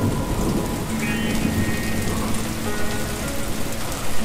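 Steady rain falling onto a wet surface, with background music of long held notes underneath.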